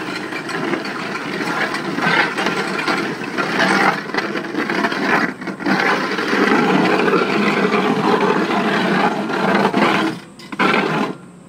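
Excavator-mounted auger drilling a foundation hole through rock, its flights grinding and crunching through broken rock slabs. The grinding drops away briefly twice near the end.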